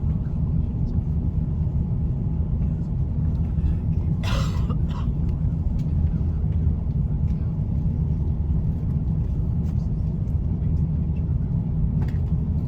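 Steady low rumble of an Airbus A350-900 cabin, from its engines and airflow, with a short burst of noise about four seconds in.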